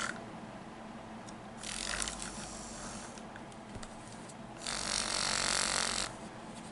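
Sonic Bomb alarm clock's bed shaker going off, vibrating in two pulses of about a second and a half each, with a pause between them.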